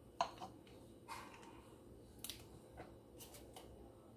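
A few faint, brief scrapes of a table knife spreading softened butter on crusty sourdough bread.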